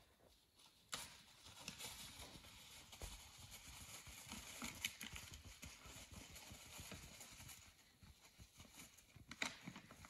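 Faint clatter and rustling of white-tailed bucks fighting: antlers knocking and hooves scuffling in dry leaves, a steady run of short clicks starting about a second in.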